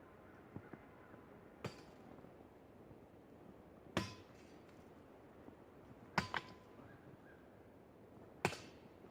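Machete blade chopping into a tree: four sharp strikes about two seconds apart, one of them a quick double hit.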